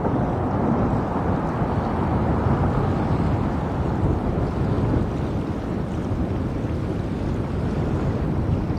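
Wind buffeting the microphone: a steady, even rushing noise, heavy in the low end.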